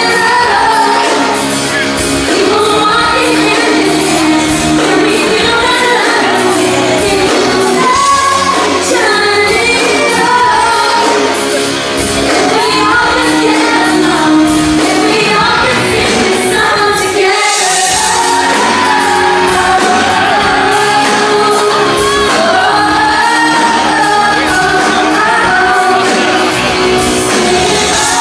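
Live pop music, a singer with band, recorded from the audience in a large hall, with people in the crowd shouting.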